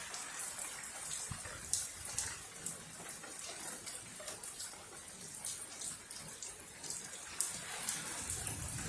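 Water trickling and dripping, with many small scattered drips over a faint steady hiss.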